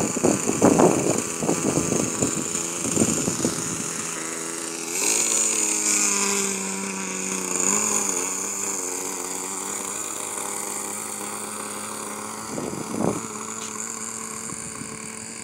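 ASP .52 two-stroke glow (nitro) engine of a homemade RC plane running, loud and uneven at first while the plane is close. About five seconds in it settles into a steady high engine note that rises as the throttle opens, then slowly fades as the plane taxis away, with a short rumble near the end.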